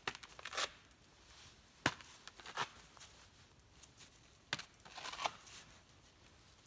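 Ball-and-paddle Velcro catch game: a couple of sharp smacks as the ball lands on a pad, about two and four and a half seconds in, and short ripping sounds as the ball is pulled off the Velcro.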